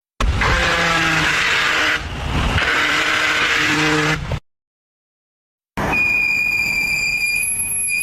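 Two abruptly cut car noise clips. First comes a loud, rough noise with a faint low hum for about four seconds. After a pause, a steady high-pitched squeal begins.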